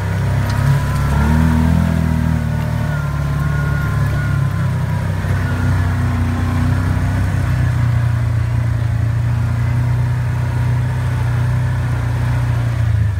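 Side-by-side UTV engine running under way, heard from on board: a steady low drone with a fainter whine above it. The pitch lifts briefly about a second in, then holds steady.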